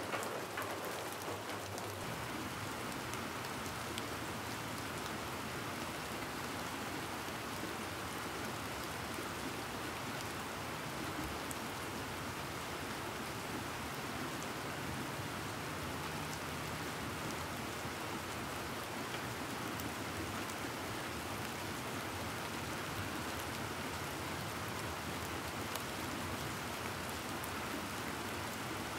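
A steady, even hiss like rain falling, with no clear strokes or rhythm.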